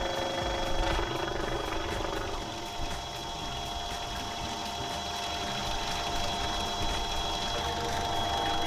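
Hanatsuka stainless rotary pump and its electric drive motor running with a steady whine, pumping water; the water can be heard pouring from the outlet pipe into the tank.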